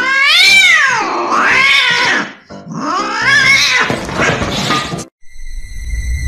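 Domestic cat giving two long, drawn-out meows, the pitch wavering up and down through each. Near the end, after a short gap, a steady high tone starts.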